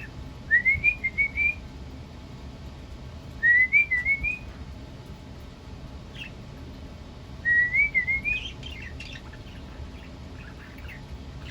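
Pet mimic bird whistling the same short phrase three times, a few wavering notes stepping upward in pitch, a few seconds apart.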